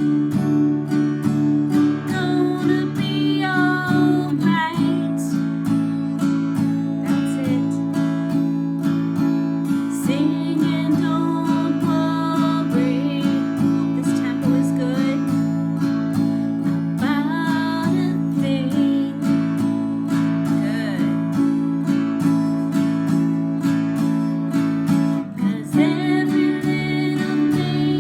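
Acoustic guitar strummed slowly in a down, down-up pattern, changing chord about five seconds in and again near the end, with a woman singing along.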